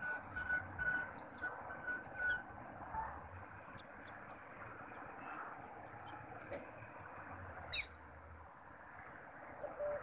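Birds calling: a short, clear note repeated about twice a second for the first two seconds, then faint scattered chirps, over a low background rumble.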